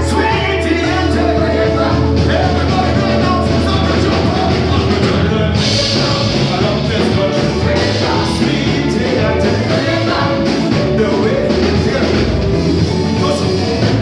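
Live band playing, with electric guitar and drums over a heavy low end, and a male singer singing into a microphone. A crash brightens the top end about six seconds in.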